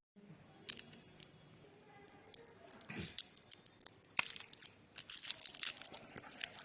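Packaging being handled and torn open: crinkling and tearing with sharp crackles, sparse at first and coming thick and fast in the second half.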